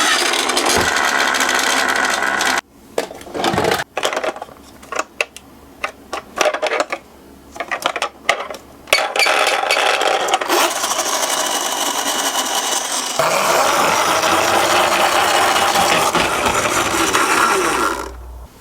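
Miniature toy cars rolling on a slope with a steady rolling rush, broken for several seconds by a run of sharp clicks and clatters as the little cars are handled and knock together, then rolling steadily again.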